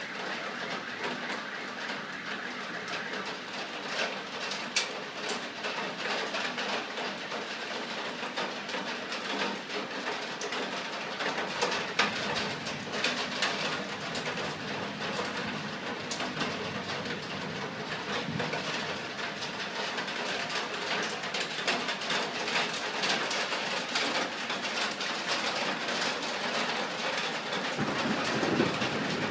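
Heavy rain pouring steadily in a thunderstorm, with many sharp drop impacts on hard surfaces.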